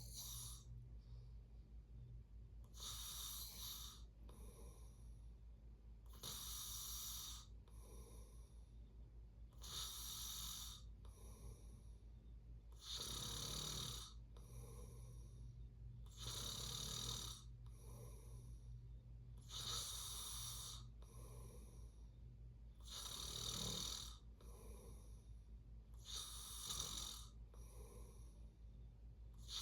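Snoring in sleep: a hissing snore about every three and a half seconds, each followed by a softer breath, over a steady low hum.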